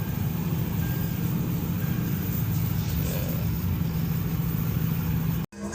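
Car engine running steadily with a low rumble, cutting off suddenly near the end.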